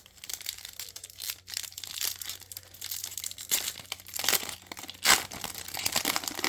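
Plastic trading-card pack wrapper crinkling and tearing as it is ripped open and handled, with several sharper crackles.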